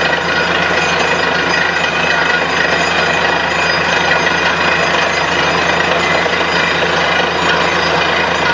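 Truck-mounted borewell drilling rig drilling steadily, a loud unbroken din of engine and drill, with water and rock cuttings blown up out of the hole and splashing down.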